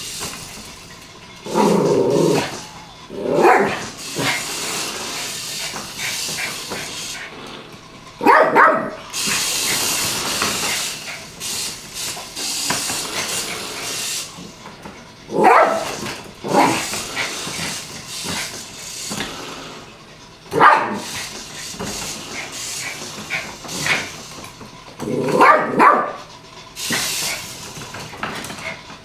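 Yorkshire terrier barking in short bouts during play, about seven times spread out, with stretches of high hissing noise between the barks.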